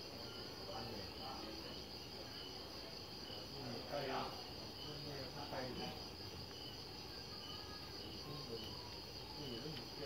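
Crickets chirping: a steady high trill with a slower, evenly pulsing chirp under it. A brief faint voice is heard about four seconds in and again a little later.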